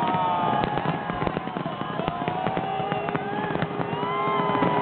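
Fireworks display: a dense run of bangs and crackles, with long wavering pitched tones rising and falling above it.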